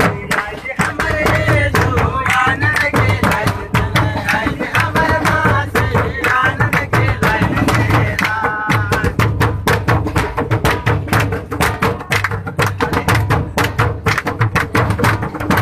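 Large nagara kettledrum beaten with sticks in fast, continuous strokes, together with a two-headed barrel drum, accompanying group singing of a bhajan. The singing is plainest in the first half and drops back about nine seconds in, leaving mostly drumming.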